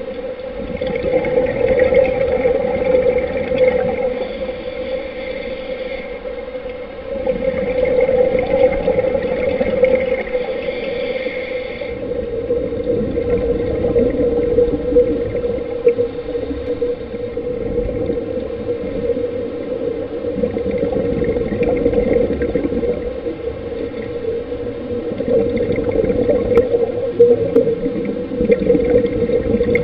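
Scuba divers breathing through their regulators, recorded underwater: their exhaled bubbles gurgle and hiss in waves that swell and fade every five or six seconds, over a steady underwater hum.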